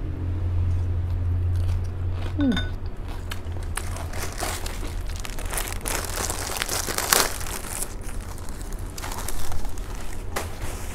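Chewing a mouthful of crisp lettuce salad close to the microphone: crackly crunching that thickens about four seconds in, with louder crunches near the middle and towards the end.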